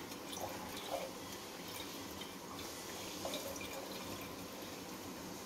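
Milk trickling and dripping from a squeezed plastic pouch into a jug, with faint crinkles and ticks from the pouch being handled.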